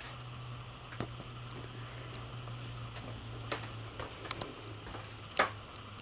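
Handling noise from a handheld camera being carried through a travel trailer: a few scattered sharp clicks and knocks, the loudest near the end, over a steady low hum.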